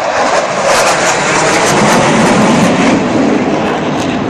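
F/A-18 Super Hornet fighter jet flying low overhead: a loud, continuous jet roar, with a deeper rumble building about halfway through.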